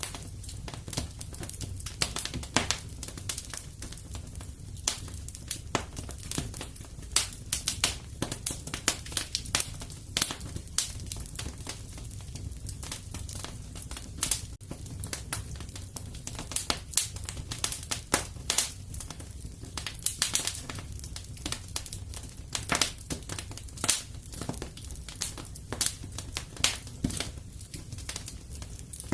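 Wood fire crackling in a fireplace: many sharp, irregular pops and snaps over a low, steady rumble of the burning.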